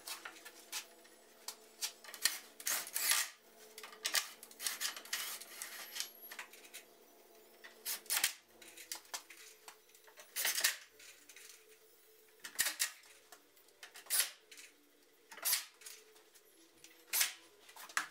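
Cordless drill countersinking and driving screws into a plywood board, with irregular sharp clicks and knocks as the drill and wood are handled and set down, over a faint steady hum.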